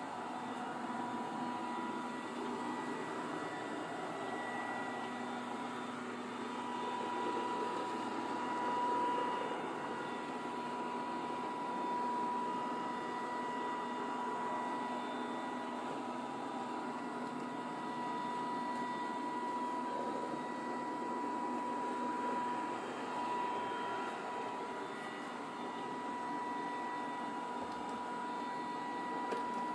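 Eureka Forbes robotic vacuum cleaner running: a steady motor hum and suction noise with a thin, steady high whine over it.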